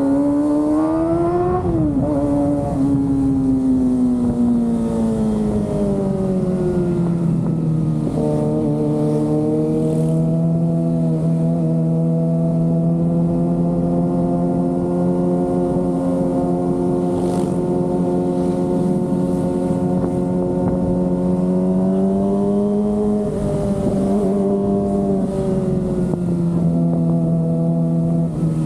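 Kawasaki ZX-25R's 250 cc inline-four engine under way: the revs climb and then break about two seconds in, falling away and settling to a steady pitch while cruising. Near the end the pitch rises briefly and drops again.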